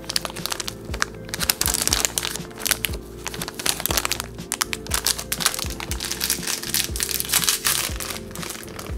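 Plastic snack wrapper crinkling and crackling as it is handled and pulled open, over background music with steady low tones.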